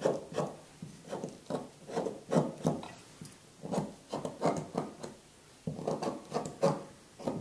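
Honing compound being scraped with a knife and rubbed onto a strop to load it: short, dry scraping strokes, a few each second, with a pause of about a second past the middle.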